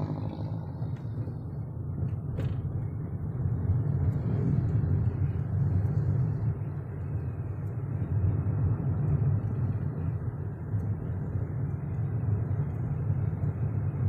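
Steady low rumble of a car with a freshly rebuilt engine and its tyres on the road, heard from inside the cabin while driving. A single faint click about two and a half seconds in.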